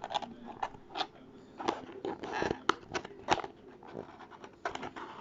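A small cardboard accessory box being opened and handled by hand: scattered clicks, scrapes and rustles, with a longer scraping rustle about two and a half seconds in.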